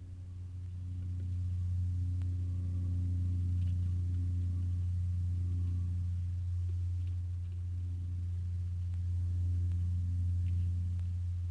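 Steady low-pitched hum with overtones, slowly swelling and fading, with a few faint ticks.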